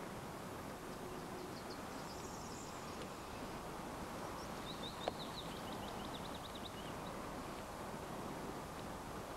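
Lakeside outdoor ambience: a steady faint background hiss with a small bird singing, a few high chirps early on and a rapid trill of high notes about five seconds in. A single sharp click comes near the middle.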